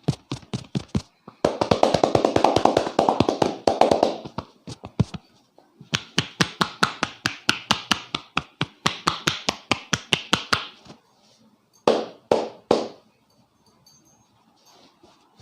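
A barber's hands rapidly tapping and slapping a person's head in a percussive massage: fast, even strikes in several runs with short breaks. About twelve seconds in come three heavier, louder slaps.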